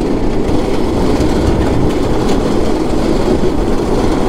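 The small single-cylinder engine of a 126cc go-kart runs steadily hard at speed, mixed with the rumble of its tyres on a gravel road.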